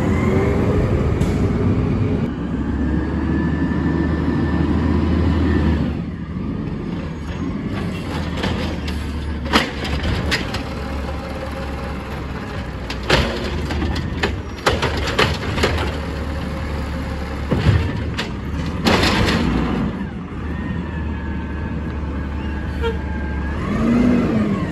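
Natural-gas Peterbilt 320 garbage truck with an Amrep automated side-loader arm. For the first six seconds the engine drones under a steady hydraulic whine. Then a run of sharp knocks and bangs comes from a cart being tipped and shaken into the hopper, and near the end the engine pulls up again with a rising whine.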